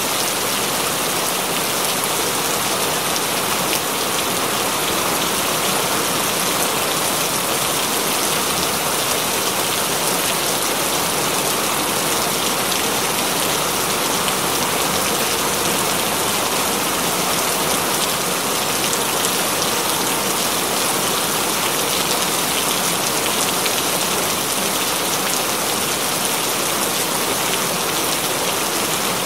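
Steady rain falling on window glass: an even, unbroken hiss of many drops.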